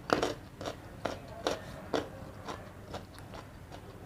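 Close-up chewing of a mouthful of rice and egg curry: short wet mouth clicks and smacks about twice a second, the loudest right at the start.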